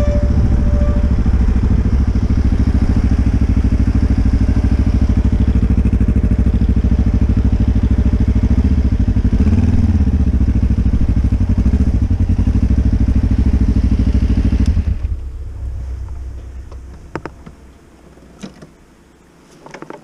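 Motorcycle engine running steadily at low speed as the bike rolls over gravel, then switched off about fifteen seconds in. A few light clicks and clatter follow.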